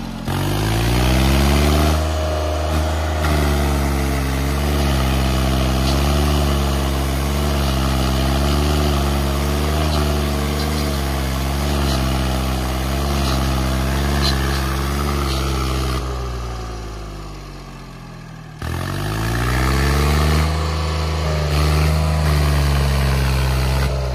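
Swaraj 855 FE tractor's three-cylinder diesel engine held at high revs under heavy load, straining to drag a loaded sugarcane trolley out of a pit. Its revs sink about two thirds of the way through, pick up sharply again a couple of seconds later, and ease off near the end.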